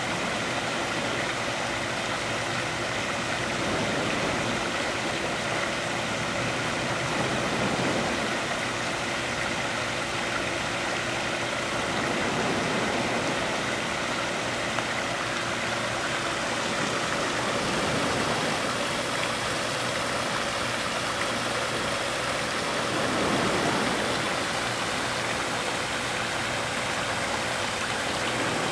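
Small sea waves washing ashore, a steady rush that swells every four to five seconds, with a faint steady hum underneath.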